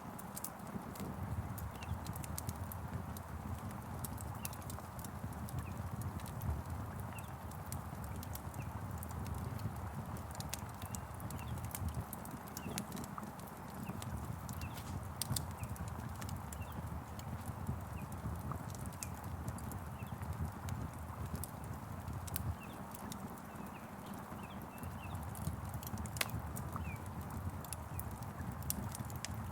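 Wood fire crackling, with irregular sharp pops and snaps over a steady low rumble, mixed with the hiss of rain. Faint short bird chirps come through now and then.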